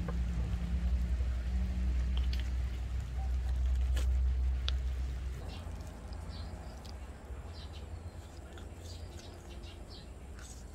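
Hands and a kitchen knife working a gutted chicken on a wooden cutting board: a few sharp taps and clicks over a low rumble that dies away about halfway through, then faint light ticking.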